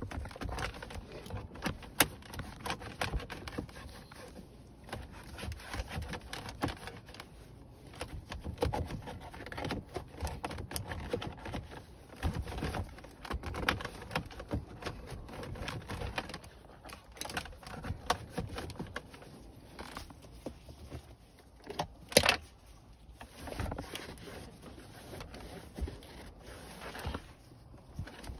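Irregular scraping, crackling and clicking from close handling noise: a nitrile-gloved hand pressing and rubbing on a leather car seat, with a sharp click about two seconds in and a louder one past twenty seconds.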